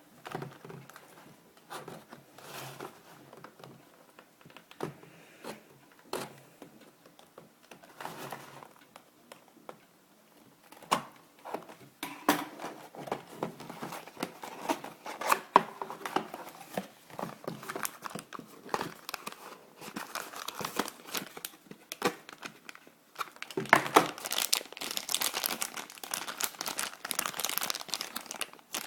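Toy packaging being handled and opened by hand: crinkling and tearing with scattered clicks and taps. It starts sparse, grows busier partway through and is densest near the end.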